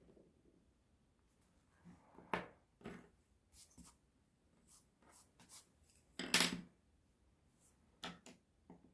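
Scattered light taps and short scratchy strokes of drawing at a desk, coming irregularly. The loudest is a brief scrape about six seconds in.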